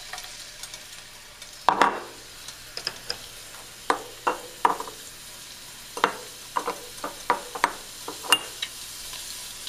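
Minced garlic frying in hot oil in a nonstick wok: a steady sizzle with irregular sharp pops and clicks, the loudest about two seconds in.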